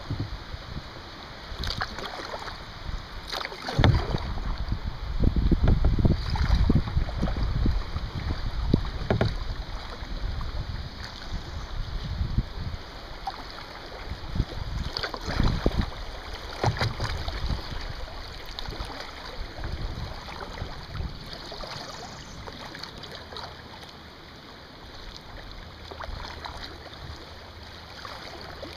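Kayak paddling on a riffling river current: irregular splashes of water, with wind rumbling on the microphone, heaviest in the first several seconds.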